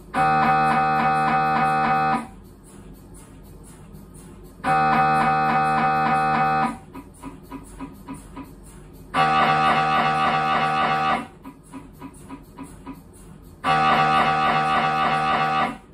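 Siemens Magnetom Symphony Maestro Class 1.5 T MRI scanner's gradient coils running a scan sequence: four loud, pitched buzzing tones of about two seconds each, separated by gaps of faint, regular knocking.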